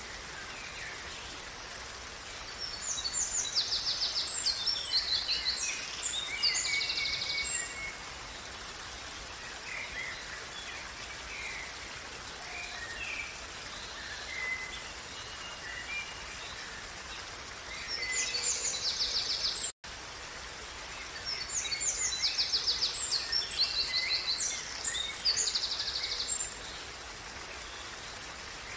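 Steady rush of a flowing stream with songbirds singing over it. A long song of rapid trills and chirps comes twice, a few seconds in and again after about twenty seconds, with scattered single chirps between. The sound drops out for an instant about two-thirds through.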